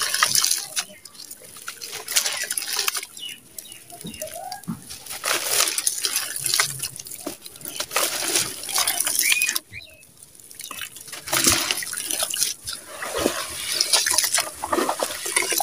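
Hands squeezing and crumbling lumps of wet red sand in a plastic tub of muddy water: wet squelching and gritty crumbling, with splashes as clumps drop into the water, in uneven bursts with a short lull about ten seconds in.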